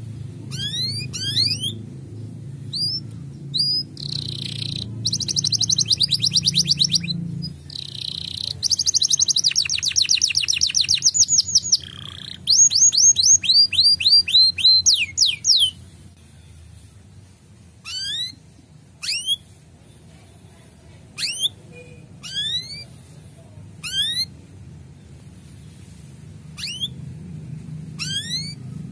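Male canary singing. Fast rattling trills come first, then a run of rising chirps, then single sharply up-swept 'cuit' chirps about a second apart through the second half.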